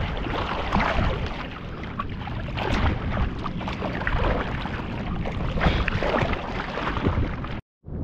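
Seawater sloshing and splashing irregularly around a fisherman's float in choppy water, with wind on the microphone. The sound cuts out completely for a moment near the end.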